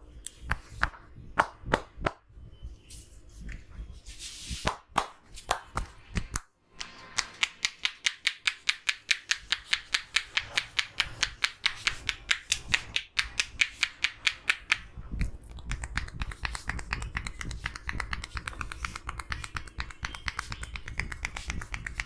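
Barber's hands tapping rapidly on a man's head in a head massage: an even run of sharp taps about five a second, turning faster, denser and softer in the last several seconds. A few separate sharp snaps come in the first few seconds.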